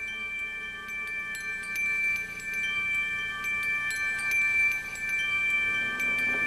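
Twinkling chimes in the soundtrack: a high ringing tone held steady, with light tinkling strikes scattered over it.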